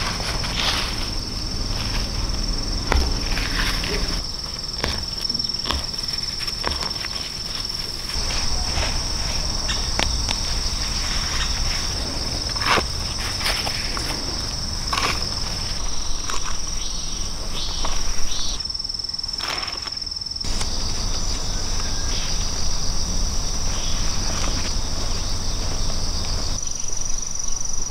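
Insects singing in a steady, high, even drone, with scattered soft clicks and rustles over it; the drone jumps in level abruptly a few times.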